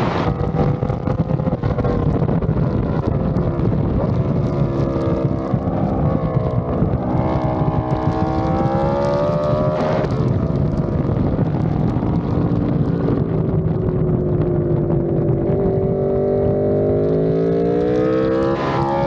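Sport motorcycle engine at track speed over heavy wind rush on the microphone, its pitch falling and rising as the bike brakes hard and changes gear, with a sharp change about ten seconds in. Near the end the revs climb as it drives out of a corner.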